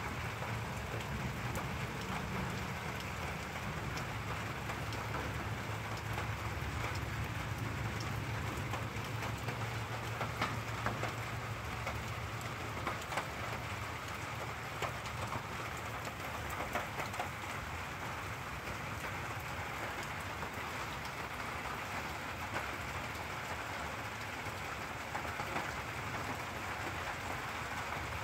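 Steady rain of a thunderstorm, with a low rumble of thunder that fades away over the first dozen seconds. A few louder drips tick in the middle.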